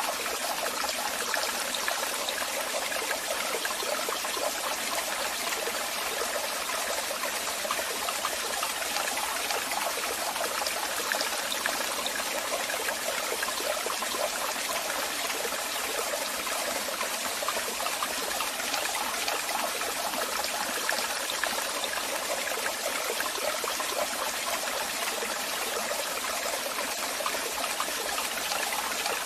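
Waterfall: water falling and splashing in a steady, unbroken rush with a bright hiss.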